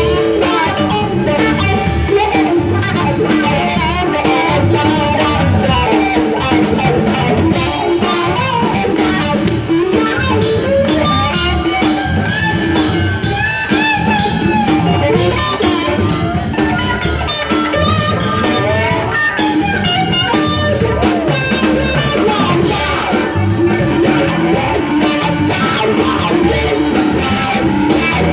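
Live blues band playing an instrumental stretch of a song: electric guitar, keyboard and drum kit keeping a steady groove.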